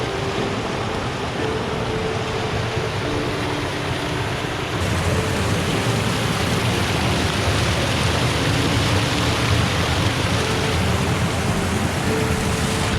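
Waterfall rushing, a steady noise of falling water that grows louder and brighter about five seconds in.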